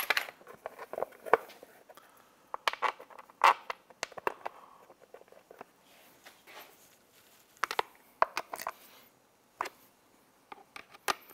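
Irregular sharp clicks and knocks, some in quick clusters, from a black plastic cover piece and small metal parts being handled and fitted by hand on an outboard powerhead.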